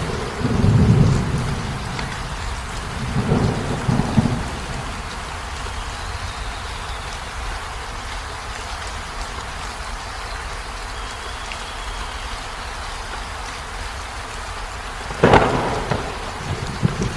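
Steady heavy rain with thunder: low rumbles near the start, then a sharp thunderclap near the end that trails off into rumbling.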